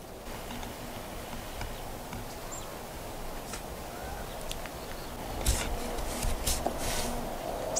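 Outdoor ambience: a steady hiss with scattered faint clicks and a brief bird chirp, then a few seconds of louder crunching rustles on dry ground a little past halfway.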